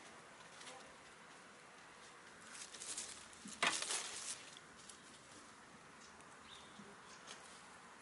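Hen scratching and pecking among dry fallen leaves: soft rustling and light crackles, with a louder cluster of crackles about three and a half seconds in.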